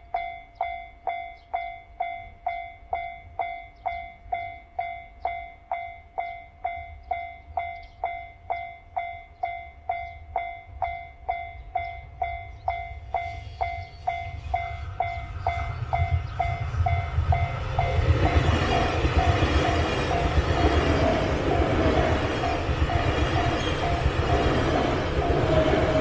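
Level-crossing warning bell ringing steadily at about two strikes a second. About 13 s in, a JR Shikoku Yosan Line electric train is heard approaching, growing louder, and from about 18 s it passes close by, its rumble and wheel noise over the bell.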